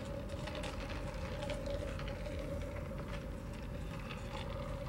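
Train rolling past: a steady rumble with a constant tone, and irregular clicks and rattles from the wheels and cars.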